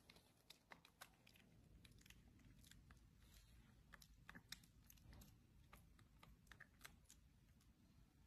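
Near silence with faint, irregular little clicks: a baby macaque chewing.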